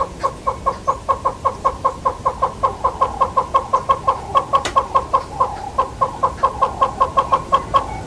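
Southern yellow-billed hornbill calling: a long, even run of short notes at about five a second, which stops just before the end.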